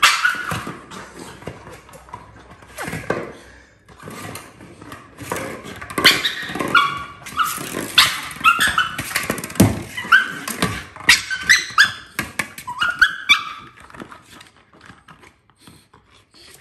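Staffordshire Bull Terrier puppy making many short excited whines and barks at her ball, mixed with knocks of the ball on the floor. The calls are thickest in the middle and thin out in the last couple of seconds.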